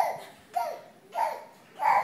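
A young child laughing in short, high-pitched bursts, about four evenly spaced laughs, each falling in pitch.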